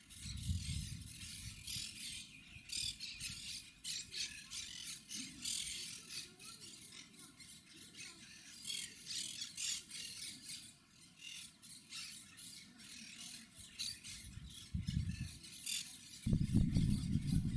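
Monk parakeets calling with repeated short, harsh squawks in an irregular stream. Near the end a loud low rumbling noise comes in.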